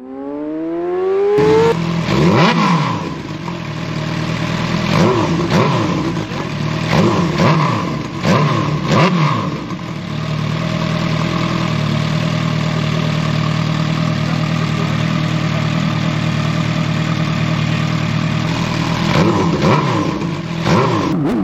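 Kawasaki Ninja H2's supercharged inline-four through a Vandemon titanium full exhaust. The engine climbs in pitch at the start, is blipped several times, settles to a steady idle, then is revved again near the end.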